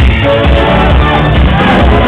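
Loud dance music with a steady, heavy bass beat playing over a club sound system.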